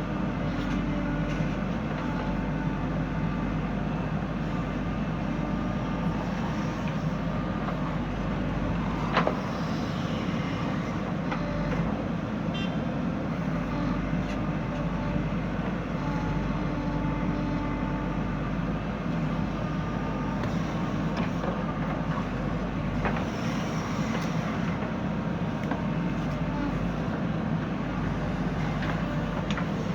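Diesel engine of a JCB 3DX backhoe loader running steadily under work, with faint hydraulic whine. A single sharp knock sounds about nine seconds in.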